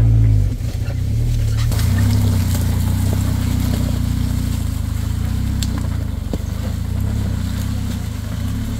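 Off-road vehicle engine running at fairly steady, low revs, with a few scattered knocks and rattles over it.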